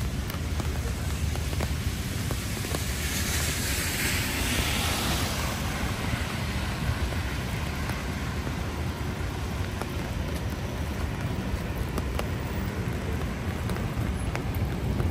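Rain pattering on an umbrella in sharp little ticks over a steady low rumble of city street noise. A car passes on the wet street about three to six seconds in, its tyre hiss swelling and fading.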